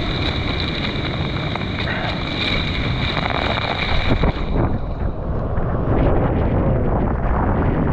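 Storm-force wind, around 100 km/h, buffeting the microphone with a loud, continuous low rumble. The hiss in the upper range fades about five seconds in.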